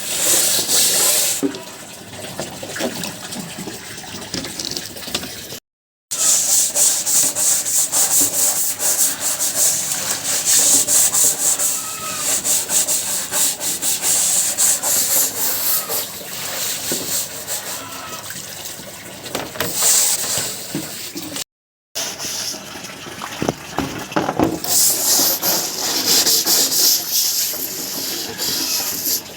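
Chicken droppings being scraped off a cage tray in quick, repeated rubbing strokes, which stop abruptly twice.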